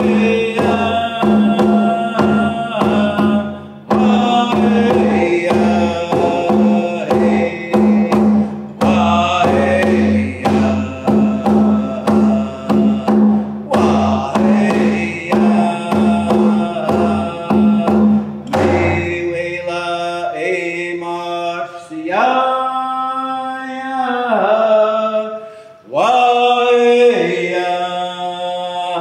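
A man singing a shíshálh welcome song in a chanting voice, keeping a steady beat on a hand-held frame drum. About two-thirds through the drumming stops and he sings on alone, with long sliding notes.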